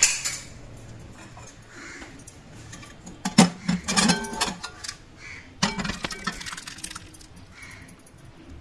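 Aluminium pressure cooker clinking and knocking against the metal pan support of a gas stove as it is handled. There are two short clusters of metallic clinks, about three and a half and about six seconds in.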